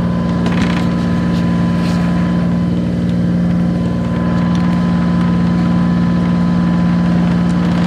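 A Bavaria 36 sailing yacht's inboard diesel engine running steadily while the boat motors along, a constant low drone.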